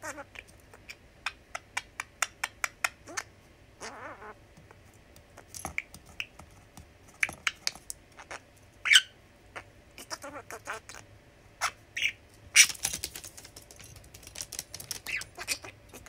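Budgie making a run of sharp clicks, at times about four a second, mixed with a few short high chirps.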